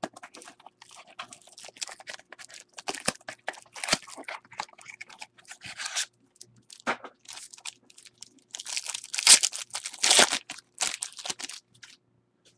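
Cardboard baseball-card pack being torn open by hand, with crackling, tearing and crinkling of card stock and wrapper. The loudest run of tearing comes about nine to eleven seconds in.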